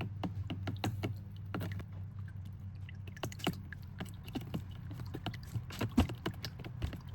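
Irregular light clicks and taps of small objects being handled, about one to three a second, over a steady low hum.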